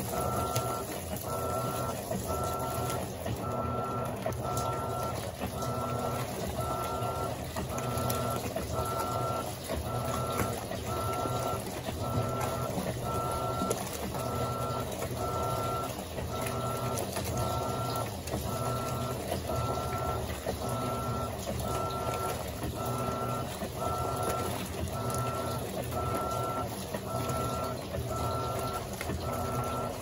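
Electrolux LAC17 top-loading washing machine agitating the wash: a motor whine pulsing about once a second, with a short break each time the impeller reverses direction, over a low hum and churning water.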